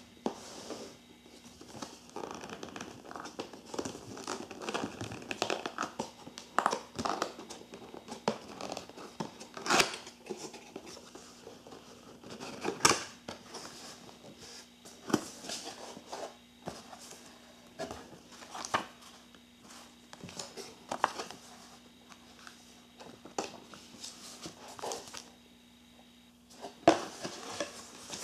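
A cardboard box being opened by hand: flaps scraping and tapping, with paper and plastic wrapping rustling and crinkling in irregular handling sounds, the sharpest taps about ten and thirteen seconds in.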